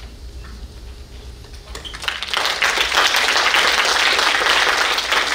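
Audience applause: quiet at first, then about two seconds in a crowd starts clapping and it quickly builds to steady, dense clapping.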